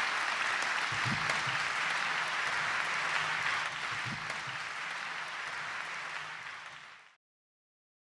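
Audience applauding, a dense, steady clapping that eases slightly and then cuts off abruptly about seven seconds in.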